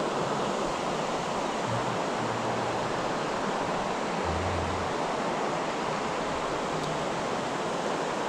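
Steady rush of fast-flowing creek water, an even hiss with no breaks.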